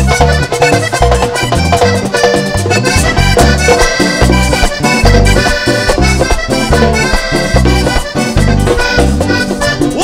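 Vallenato music, instrumental: a Hohner diatonic button accordion plays the lead line over a steady beat of bass and percussion.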